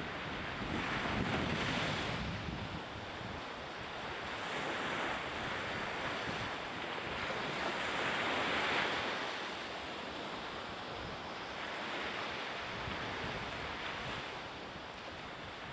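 Sea surf washing in, a rushing noise that swells and fades every few seconds.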